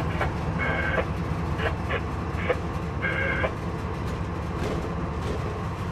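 Diesel locomotive engine running steadily, heard from inside the cab, with several short high-pitched sounds over the first three and a half seconds.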